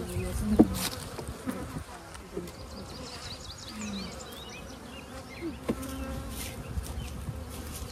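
Honeybees buzzing in a steady hum from an open hive full of bees. A few sharp knocks come from the metal hive tool working wooden frames loose, the loudest about half a second in.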